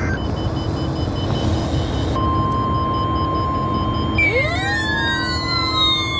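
NOAA Weather Radio broadcast through a receiver, with hiss. A steady warning alarm tone of about 1 kHz comes on about two seconds in. About four seconds in, several siren-like tones start sweeping up and down over the steady tone.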